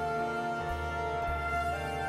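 Soft background music: held notes over a steady bass line, changing chords about every second or so.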